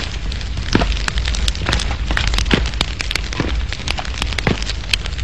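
Irregular crackling: sharp clicks and pops several times a second over a steady low hum.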